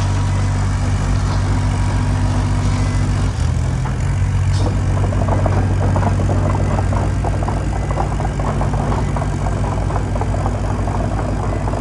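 Cat 216B3 skid steer loader's diesel engine running steadily; the engine note shifts about three seconds in, and a light clattering rides over it from about four and a half seconds on.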